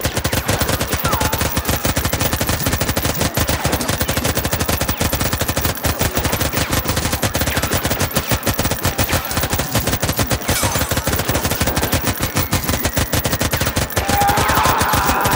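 Rapid, unbroken automatic fire from two submachine guns. Near the end a man yells over the shots.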